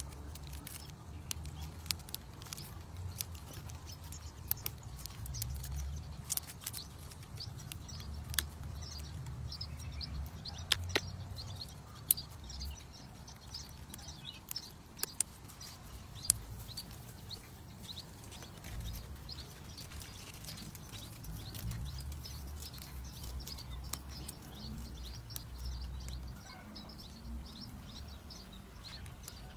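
Scattered small clicks and rustles of leaves being plucked off a ta-ko (Diospyros) bonsai by hand, over a steady low rumble. Short high bird chirps repeat faintly through the middle and latter part.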